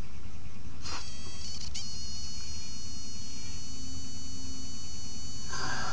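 Electric wood lathe running, a steady motor hum with a high whine. Two sharp clicks come about one and two seconds in, and a brief rougher burst near the end.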